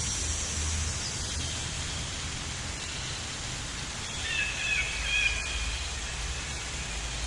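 Outdoor nature ambience: a steady hiss with a low rumble underneath, and a bird calling in a few short phrases about four to five and a half seconds in.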